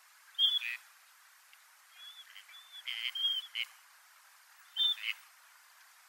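Gadwall drakes giving courtship display calls: short high whistles, some running into a lower buzzy note. One bout comes about half a second in, a longer run around two to three and a half seconds in, and a brief one near five seconds.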